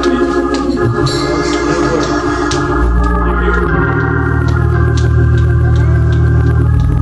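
Church organ playing held chords, joined about three seconds in by a deep sustained bass note, with faint percussion ticks.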